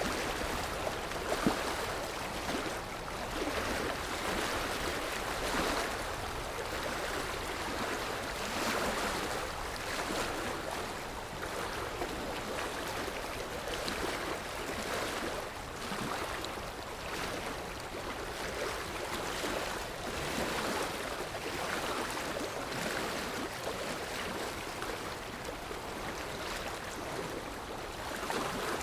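Sea waves washing in, a steady rush that swells and eases every couple of seconds, with one brief tap about a second and a half in.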